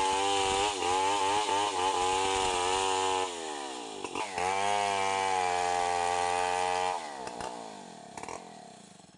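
Stihl 070 two-stroke chainsaw cutting lengthwise through a log at full throttle. About three seconds in the revs drop briefly and then climb back up; about seven seconds in the throttle is let off and the engine winds down, fading near the end as the cut finishes.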